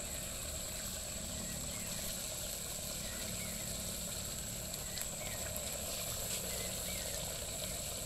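Steady high-pitched insect drone, with a few faint short chirps over it.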